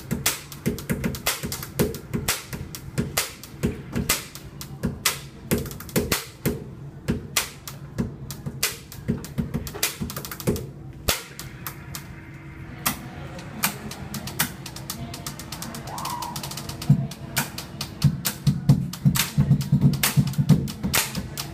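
Pen tapping: pens drummed on a sink counter in a fast, drum-like rhythm of sharp clicks, with heavier, denser hits near the end.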